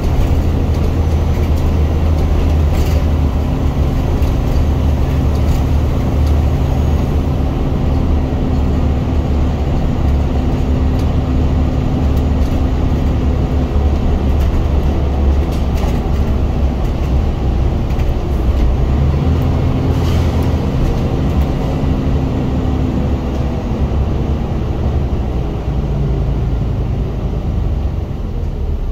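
Scania bus diesel engine heard from inside the cabin at the rear, worked hard with a loud, deep thrash. The engine note holds for about thirteen seconds, drops back, then climbs again about twenty seconds in as the bus pulls through the gears.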